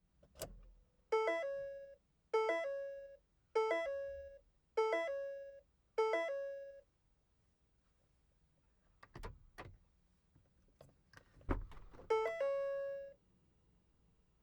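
A car's door-open warning chime sounding five times, about one chime every 1.2 seconds, each a short two-note ding. After a pause come a few clicks and two dull thuds, then one more chime near the end.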